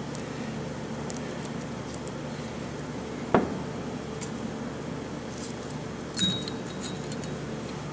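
Small metal transmission parts being handled on a workbench: a sharp click about three seconds in, then a brief metallic clink that rings for a moment a little past halfway.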